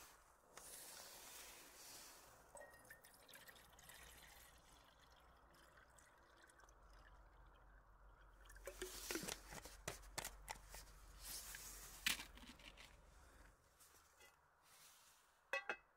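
Water poured from a bottle into a Trangia cooking pot, splashing and trickling for about five seconds in the second half. Two sharp clicks come near the end.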